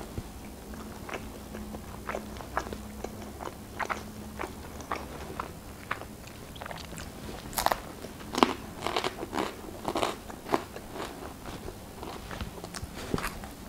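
Close-up chewing and biting of pizza, with crisp crunches from the crust. The crunching grows denser and louder a little past halfway, then eases off.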